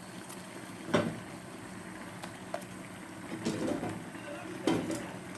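Cooking handling sounds: a sharp knock of a pot or utensil about a second in, then softer clatter and rustling, over a faint steady hum.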